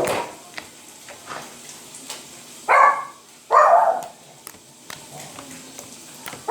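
A dog barking twice in quick succession, about three seconds in.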